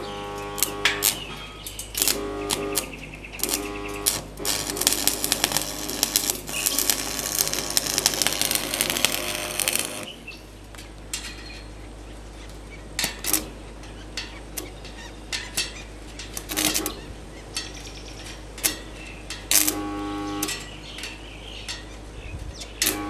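Stick (arc) welding on a steel angle-iron frame: the arc crackles and hisses for about five seconds in the middle, with sharp metallic clicks and taps before and after it, over a steady low hum.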